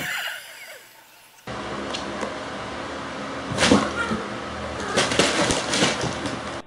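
Two cats play-fighting on a wooden floor: scuffling and several thumps of paws and bodies over a steady room hiss, the loudest thump a little under four seconds in.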